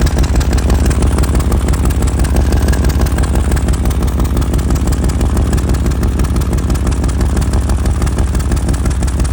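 2000 Chevy Tahoe's V8 idling steadily, with a fast, even low pulsing. The truck has an exhaust leak near the catalytic converter, which the owner says makes a noise.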